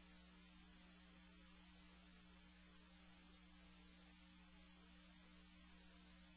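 Near silence: a faint, steady electrical hum with a low hiss underneath, unchanging throughout.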